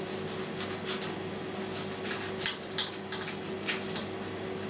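A meat knife sawing through a fried placinda on a ceramic plate, steadied with a fork. It makes a run of short scrapes and clicks as the blade catches the crust and the plate, with two sharper ones about halfway through. The meat knife cuts the pie poorly.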